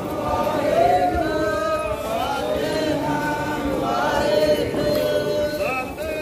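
Many voices chanting a devotional hymn together, with long held, gliding notes.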